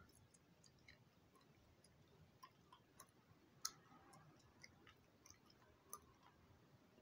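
Near silence broken by faint, irregular wet clicks of gum chewing and smacking, about one every half second or so, the loudest a little past halfway.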